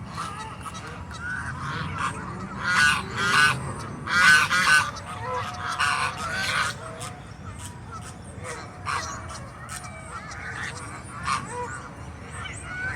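Goose honking in a series of calls, loudest and most frequent a few seconds in, then fewer and quieter calls toward the end; the bird is agitated.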